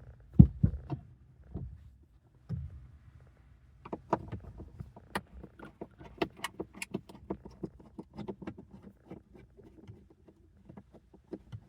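Screwdriver and plastic dashboard parts being handled: a few heavy knocks near the start, then a long run of irregular small clicks and taps as screws are worked out from behind the dash.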